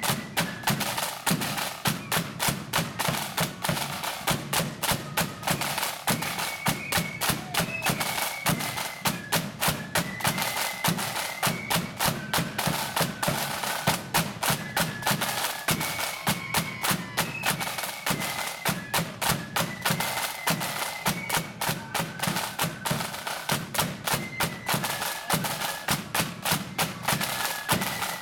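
Marching flute band playing: crisp, rapid side-drum strokes and rolls on a steady marching beat with a bass drum, under a faint, high flute melody.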